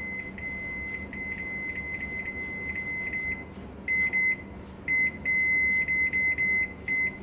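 Microwave oven beeping: a run of high, single-pitched electronic beeps. After a pause about three and a half seconds in, the beeps come louder, with one stretch held for nearly two seconds near the end.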